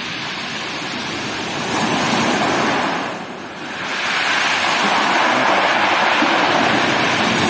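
Sea surf breaking on the shore: a loud surge of crashing water about two seconds in, a short lull, then another wave building from about four seconds and holding.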